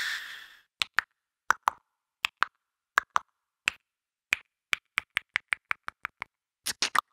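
Beatboxer's mouth-made sound effect: a hiss that fades out in the first half second, then sharp mouth clicks. The clicks come first in pairs about two-thirds of a second apart, then quicken into a faster run of single clicks, with a quick cluster near the end.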